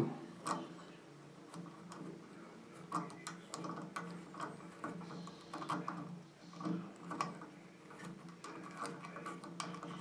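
Scattered faint clicks and small metal-on-plastic ticks as a screwdriver backs out the one screw on a shower valve cartridge's stem and the loosened part is worked off by hand.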